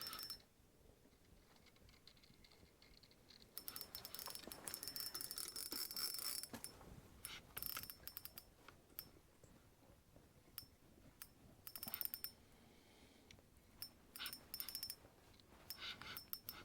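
Ice-fishing reel being cranked in short bursts with a faint clicking, ratcheting sound while a hooked fish is played up through the ice; the longest stretch of reeling comes about four seconds in, with shorter bursts later.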